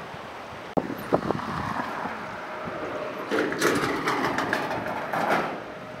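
Train running on rails, with irregular knocks and clatter and two louder rattling stretches. It starts abruptly about a second in, replacing a steady hiss.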